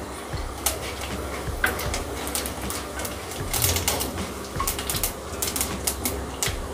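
Cumin and fenugreek seeds crackling in hot desi ghee in a kadhai, the tempering (tadka) stage, with many irregular sharp pops.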